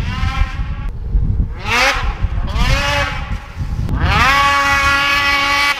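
2022 Ski-Doo Freeride 850 snowmobile with a GGB Mountain Can exhaust, its two-stroke engine revved hard and very loud. The pitch climbs steeply three times, and the last and longest rev, about four seconds in, holds high before cutting off at the end.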